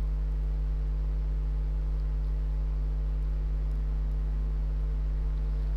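Steady electrical mains hum: a low buzz with a stack of evenly spaced overtones, unchanging throughout.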